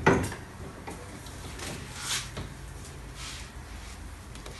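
Faint handling of hand tools: a sharp click at the very start, then a few soft scattered rustles over a low steady hum.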